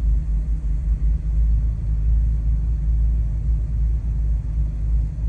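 Honda Civic Type R heard from inside the cabin while driving slowly: a steady low engine and road rumble.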